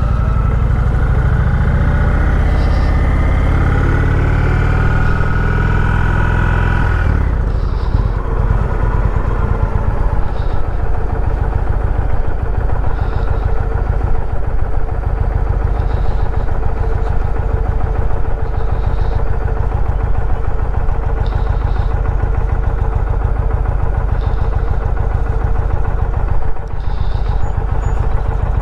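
Motorcycle engine under way, rising in pitch for about seven seconds as it accelerates, then dropping suddenly and holding a steady tone while cruising, over a heavy low rumble.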